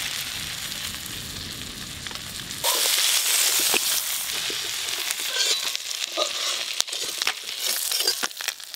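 Hot oil sizzling in a wok after frying crab pieces, which are being lifted out with a metal spatula. The sizzle gets suddenly louder a little under three seconds in and then slowly dies down, with the spatula scraping and clicking against the pan in the second half.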